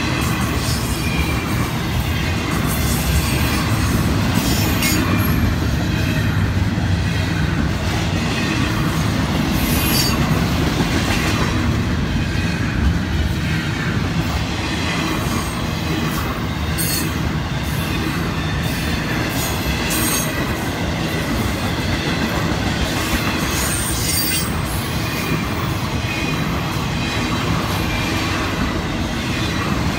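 Florida East Coast Railway intermodal freight train rolling past at close range: a steady rumble of double-stack well cars and trailer flatcars on the rails, with brief high-pitched wheel squeals now and then.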